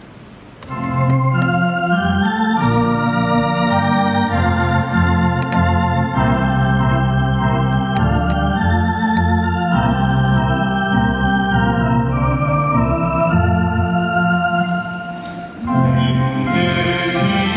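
Organ playing the introduction to a hymn: sustained chords over a moving bass line. It begins about a second in, dips briefly near the end and then comes back in.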